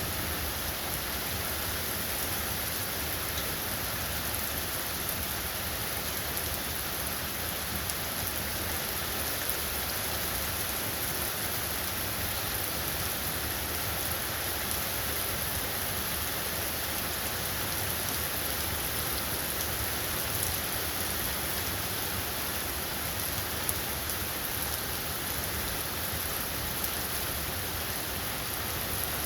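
Steady rain falling in a rainstorm: an even, unbroken hiss with scattered faint drop taps.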